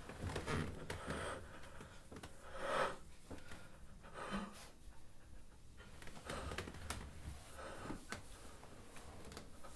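A man panting heavily in distress, with uneven, ragged breaths.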